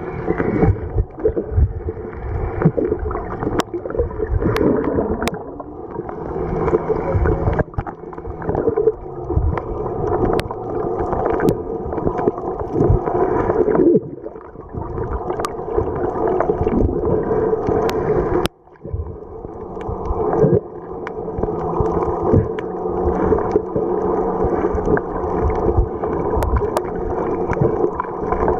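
Muffled underwater sound from a camera held below the surface: water swishing and thumping against it over a steady droning hum. The sound drops off abruptly twice, about halfway through and again a few seconds later.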